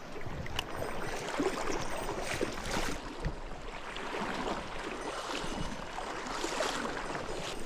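Water of a mountain stream rushing and splashing over rocks, an irregular steady wash.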